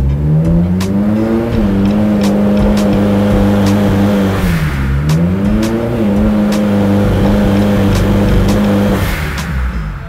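Turbocharged Honda engine running under load on a chassis dyno, broken by sharp irregular pops and crackles: an ignition misfire under boost, which the tuner puts down to the spark plugs. The engine note climbs at the start, dips briefly about midway, then drops away near the end.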